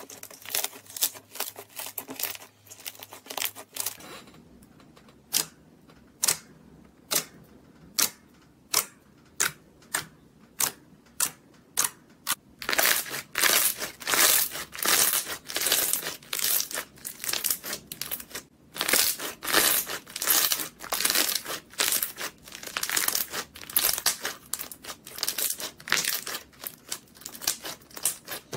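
Hands pressing and kneading slime, making a run of sharp pops and clicks about one or two a second, which turns into a denser crackling from about halfway through.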